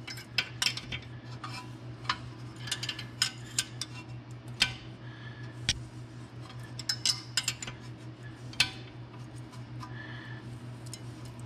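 Irregular sharp metallic clicks and clinks as a wrench turns a quarter-inch bolt that presses against the back of a rusted rear brake rotor, forcing it off the hub. This is the sound of the rust between rotor and hub breaking free. A steady low hum runs underneath.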